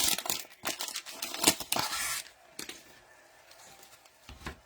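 Cellophane-wrapped trading-card pack being handled and opened: the plastic wrapper crinkles and tears, and the cards click and slide, busy for the first couple of seconds. After that come a few scattered clicks of cards.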